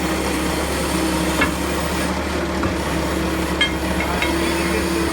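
Bobcat T190 compact track loader's diesel engine running steadily while the machine is backed up to work the track off its sprocket, with a mid-pitched whine coming and going over the low engine hum and a few sharp clicks.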